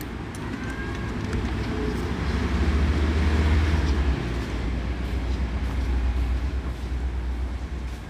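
A low engine rumble from a vehicle running nearby, swelling over the first three seconds or so and then holding, with a few faint clinks of metal early on.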